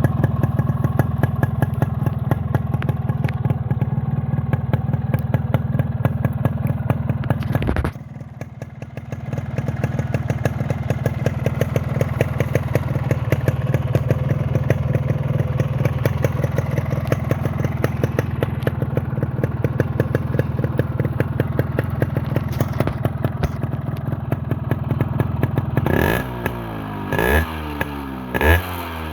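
Yamaha RX 135 two-stroke single-cylinder engine running at a steady idle through a modified 'flute' exhaust, dipping briefly about eight seconds in. Near the end it is revved in a few quick throttle blips.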